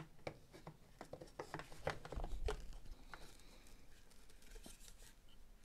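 Irregular light clicks and taps of plastic parts being handled and fitted: a Makita DX01 dust extraction unit's plastic dust duct and rubber bellows against its housing. The taps come thickest in the first three seconds, then thin out.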